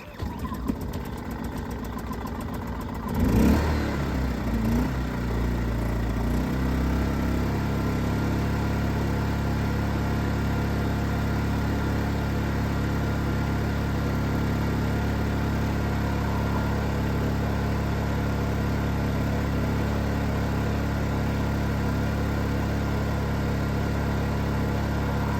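Predator 2500 inverter generator's small four-stroke engine catching on a pull start and running, its speed shifting unevenly for the first several seconds, with a brief louder surge about three seconds in, then settling to a steady, fairly quiet run.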